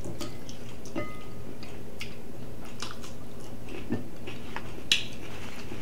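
Chewing and biting from eating chicken wings, a scatter of small wet clicks and mouth smacks, with one sharper click about five seconds in.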